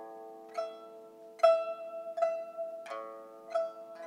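Background music: a soft melody of plucked notes, about one every 0.7 seconds, over a held low chord.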